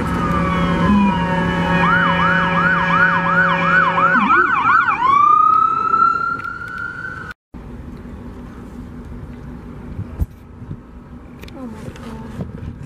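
Emergency vehicle siren: a slow falling wail, then a fast yelp going up and down about three times a second, then a rising wail, over a steady low hum. It cuts off abruptly about seven seconds in, leaving a quieter steady hum.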